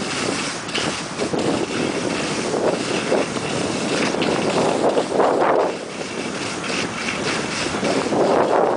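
Wind rushing over the camera microphone of a moving skier, with skis hissing and scraping over soft spring snow. The rush swells in surges every two to three seconds.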